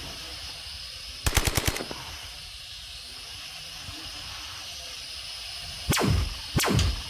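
Added video-game-style combat sound effects: a quick burst of machine-gun fire, about six rapid shots, about a second in. Near the end come two blasts that drop sharply in pitch. Under them runs the steady high whine of small quadcopter propellers.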